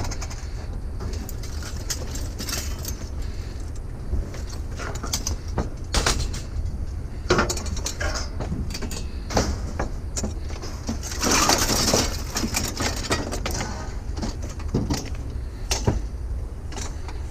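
Wire being cut and pulled off scrap metal by hand: scattered clicks and knocks of the clippers and metal parts, with a longer scraping rattle about eleven seconds in, over a steady low rumble.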